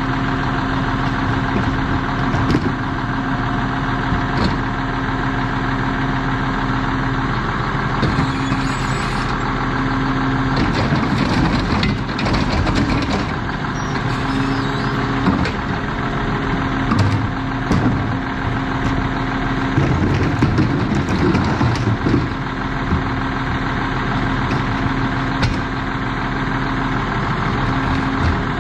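Lodal EVO garbage truck idling, its steady drone carrying a hum that drops out and comes back several times as the cart tipper works. Clanks and knocks of plastic carts being lifted, tipped and banged against the hopper come in clusters, loudest about a third of the way in and again past the middle.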